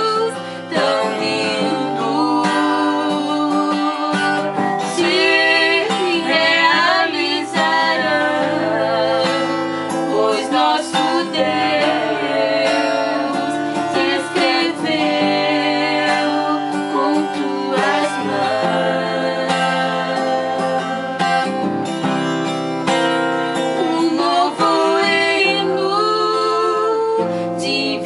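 Gospel song with acoustic guitar accompaniment and singing.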